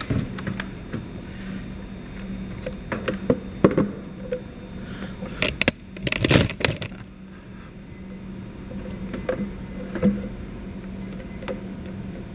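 Handling noise of a clear braided plastic hose and its barbed fitting being moved around an engine bay and against the air-intake duct: scattered clicks and rustles, busiest about three to seven seconds in, over a steady low hum.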